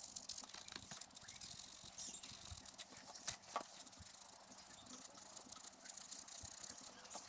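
Kitchen scourer pad scrubbing the end of a Yamaha XS650 camshaft: a faint, fast scratchy rubbing on metal, with a couple of light knocks a little after three seconds in. The scuffing roughs up the shaft where the new cam seal will run.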